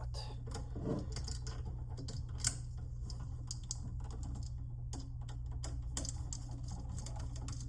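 Light, irregular clicks and taps of a ground wire and screw being fitted to an electrical receptacle by hand, over a steady low hum.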